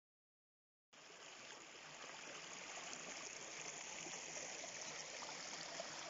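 Shallow stream water running and trickling over leaves and stones. It fades in about a second in and grows gradually louder.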